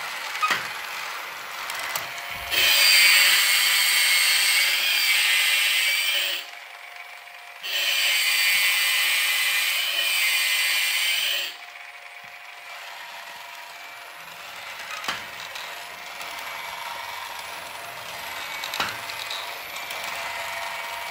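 The assembled King Gojulas model's battery motor and gearbox running, a steady whir with gear chatter that wavers in a regular cycle. It runs twice for about four seconds each, with a short pause between, and stops abruptly each time.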